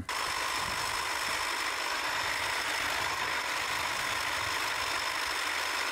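3D-printed tank's brushless motors and printed gearboxes running as it drives, a steady whine over a rough gear noise at an even level.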